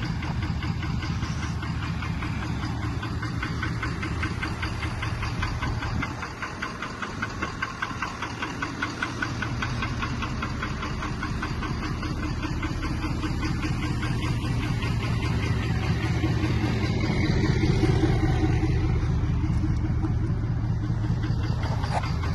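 Ford 6.7 Power Stroke V8 turbodiesel idling with a steady, rapid knock, the sound the owner puts down to a bad fuel injector.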